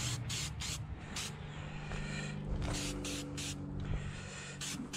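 Aerosol spray-paint can hissing in a run of short bursts, several in the first second, a pause, then more from about two and a half seconds in, over a low steady hum.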